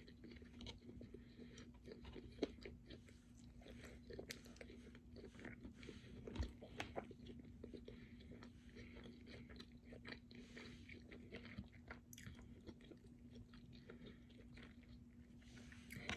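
A person eating: quiet chewing with scattered small clicks and crunches from biting food, over a faint steady hum.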